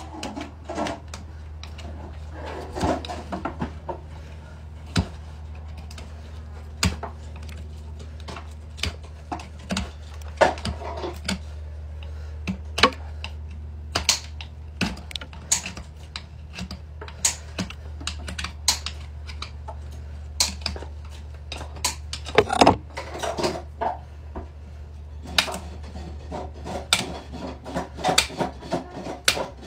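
Farrier's hoof nippers trimming a pony's hoof wall: irregular sharp snaps and clicks, with short passages of scraping, over a steady low hum.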